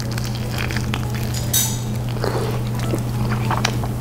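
A person chewing a bite of pizza: wet mouth clicks and smacks, with a brief louder smack about a second and a half in, over a steady low hum.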